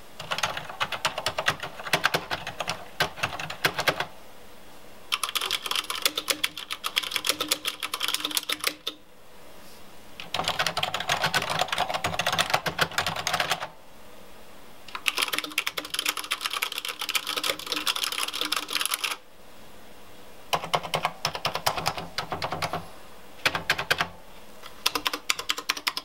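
Rapid typing on Cherry MX mechanical keyboards, in about six runs of fast keystrokes a few seconds each with short pauses between. The typing switches back and forth between two keyboards to compare a standard Cherry MX switch with a rubber-dampened Cherry MX Silent switch.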